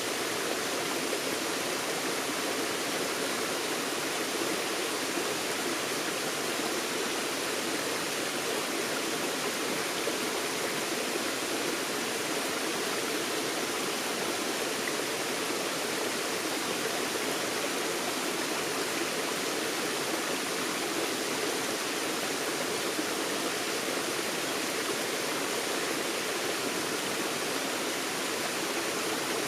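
Forest stream running over rocks: a steady, even rush of water with no breaks.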